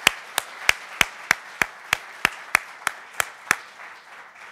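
Audience applauding, with one person's loud, close claps in a steady rhythm of about three a second standing out above the crowd. The close claps stop about three and a half seconds in, and the applause dies away near the end.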